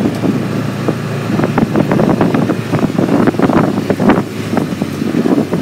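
A vehicle driving along: its engine hums steadily while frequent knocks and rattles come through, heavier from about a second and a half in.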